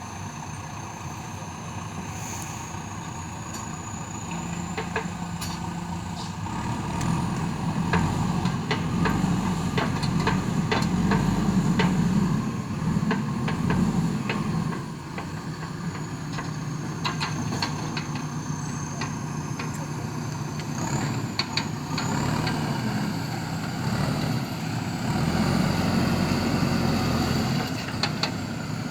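Diesel engine of a JCB 3DX backhoe loader running and working. It grows louder and falls back twice as the load changes, with sharp knocks scattered through it.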